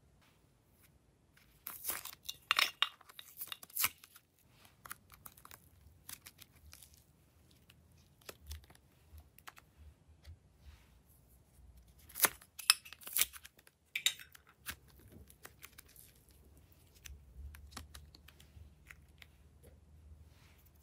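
Close-up crackling and tearing as soft purple clay is pulled and handled. It comes in two bursts, about two seconds in and about twelve seconds in, with scattered light clicks and ticks between them.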